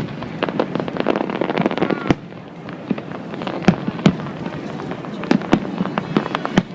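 Fireworks going off: a dense run of crackling bangs for about two seconds, a short lull, then single sharp bangs every half second to second.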